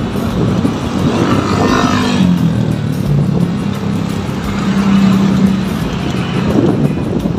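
Road traffic heard from a moving bicycle: motor vehicles running past, with an engine hum that holds a steady pitch for a few seconds in the middle.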